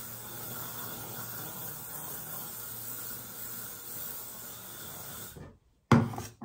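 Aerosol hairspray can spraying in one long continuous hiss that cuts off suddenly about five seconds in, followed by a short thump near the end.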